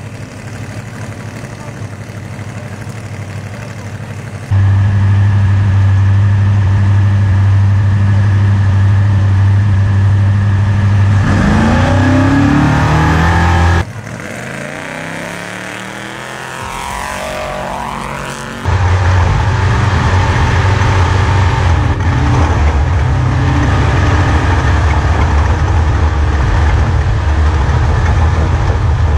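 Trophy Truck race engine at the start line, idling with a deep steady drone and revving up a little before the halfway mark. Then a vehicle passes with its engine pitch sweeping, and from about two-thirds through comes loud engine and drivetrain noise heard inside the cab while the truck races.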